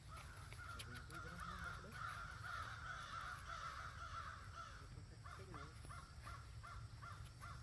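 Animal calls: a drawn-out call for about five seconds, then a run of short repeated calls.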